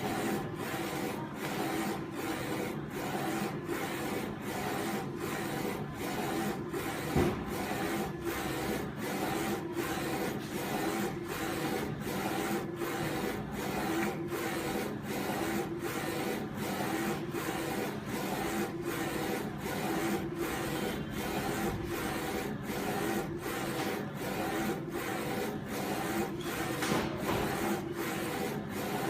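UV flatbed printer printing on glass: the print-head carriage runs back and forth with a steady motor hum, the sound dipping briefly at each reversal, about one and a half times a second. A single knock sounds about seven seconds in.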